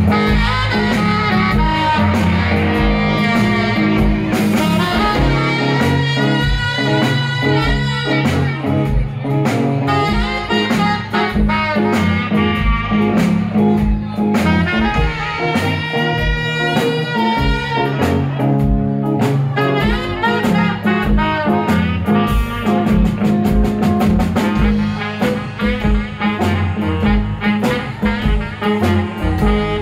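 Live blues band playing an instrumental: a saxophone carries the melody over electric guitar, bass guitar and a drum kit keeping a steady beat.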